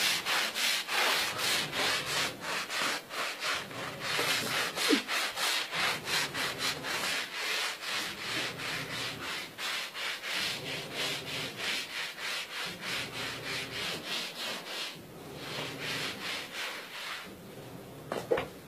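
Rhythmic scrubbing strokes on a floor by hand, about two to three strokes a second. They stop about fifteen seconds in and return briefly before ending.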